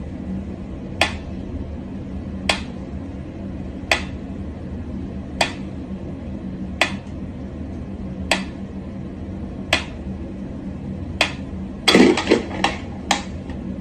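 Mechanical pendulum metronome ticking slowly and evenly, one sharp tick about every one and a half seconds. About twelve seconds in, a quick flurry of louder knocks breaks in.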